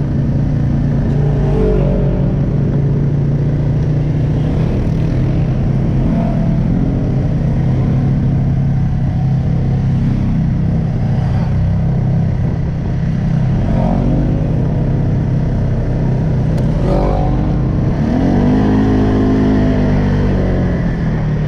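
Polaris Sportsman 570 ATV's single-cylinder engine running under way on a trail ride, steady for long stretches and revving up and down with the throttle a few times in the second half.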